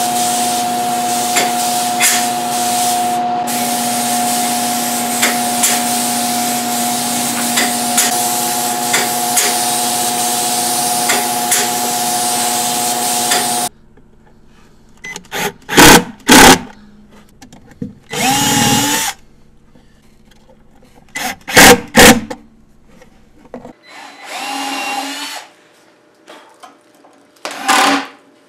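A spray gun on a hose hisses steadily over a machine hum, then cuts off suddenly about 14 seconds in. After that a cordless impact driver runs in several short bursts, driving drawer-slide screws into the cabinet.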